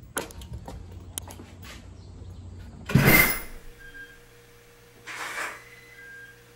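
A door being shut: a loud, short noise about three seconds in, then a softer door sound about two seconds later, after a few light clicks near the start.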